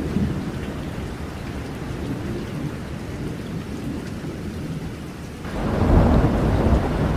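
Thunderstorm sound effect: steady rain and low rumbling, swelling into a louder thunder rumble about five and a half seconds in.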